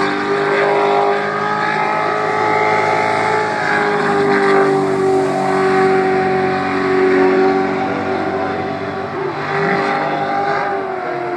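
Jet sprint boat's engine running hard at high revs through the course, a steady loud engine note that rises and dips slightly, dropping a little in pitch near the end.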